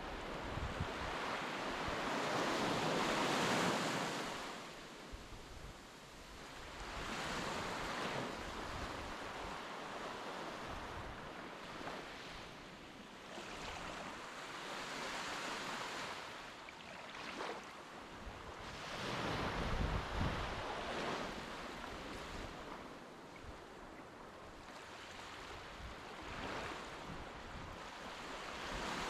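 Sea waves washing onto the shore, swelling and fading every few seconds, with wind buffeting the microphone.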